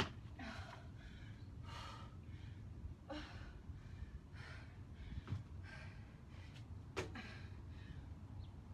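A woman's heavy, gasping breaths, one every second or so, while she works through dumbbell manmakers. There is a sharp knock right at the start, a dull thump about five seconds in, and another knock about seven seconds in.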